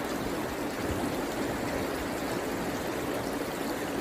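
Shallow river rushing over stones in small rapids, a steady rush of water.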